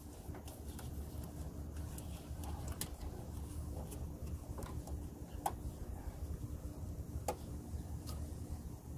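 Irregular light clicks and taps of plastic parts and wiring being handled behind a car headlight during an LED bulb install, over a steady low hum.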